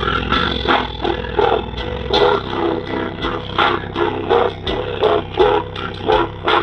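JBL Boombox 3's racetrack subwoofer driver, removed from its housing, playing a bass test track in its low-frequency mode at full volume, the cone making large excursions. A loud, rhythmic pulsing bass beat with a rough, growling edge.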